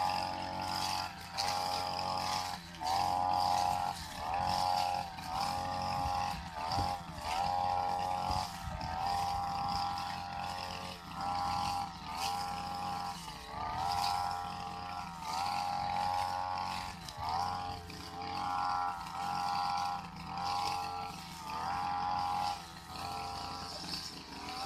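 Backpack brush cutter with a metal grass blade running at high revs. Its engine note dips and recovers about once a second as the blade swings through the grass under load.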